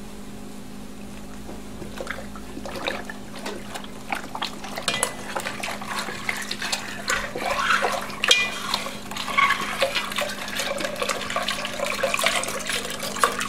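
Beef stock pouring from a carton into a pot of beer, glugging and splashing irregularly as it goes in.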